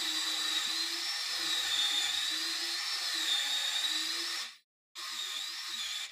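Cordless drill spinning a stepped bit through a pocket-hole jig into a wood panel, with a high whine that wavers as the bit loads in the cut. It cuts off abruptly about four and a half seconds in, then a second, shorter run follows.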